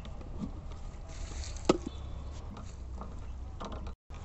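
Outdoor ambience with a steady low rumble and a few small clicks and knocks, the loudest a single sharp click a little under two seconds in. The sound cuts out briefly near the end.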